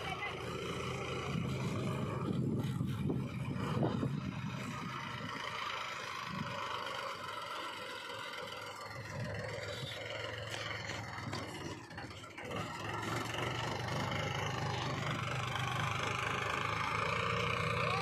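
Powertrac 434 DS Plus tractor's three-cylinder diesel engine running steadily as it pulls a trolley loaded with mud, with a brief dip in level about twelve seconds in.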